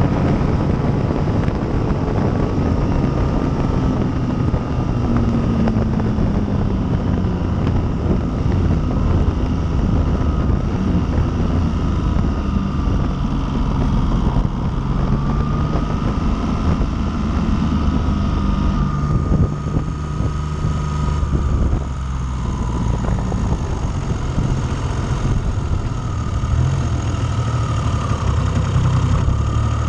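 Triumph Trident T160's three-cylinder engine under way, its revs rising and falling through the gears. About two-thirds through the engine drops back, and it runs at low revs near the end as the bike slows.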